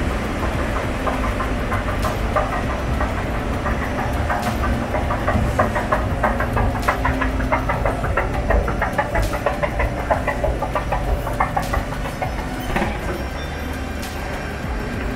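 Escalator running: a steady low hum with fast rattling clicks that die away near the end.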